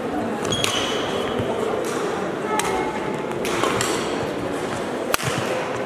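Badminton rally: several sharp racket hits on the shuttlecock, the loudest about five seconds in, with brief squeaks and a murmur of voices echoing in the sports hall.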